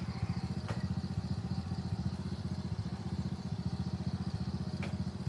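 A small engine idling steadily with a fast, even beat, with a few faint clicks over it.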